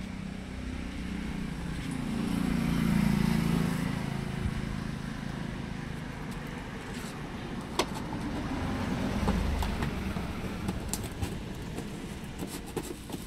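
A motor vehicle going past: a low engine rumble that builds to a peak about three seconds in and fades away, then a second, fainter one a few seconds later. Several sharp clicks and knocks come near the end.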